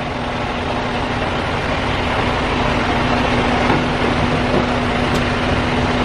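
A semi truck's diesel engine idling: a steady low hum over an even rumble that holds throughout.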